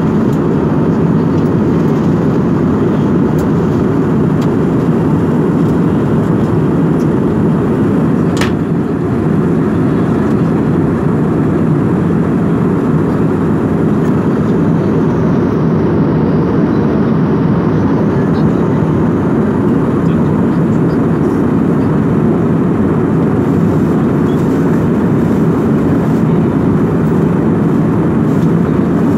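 Steady cabin noise of an Airbus A320-family jet airliner in flight: a constant low rush of jet engines and airflow heard from inside the cabin.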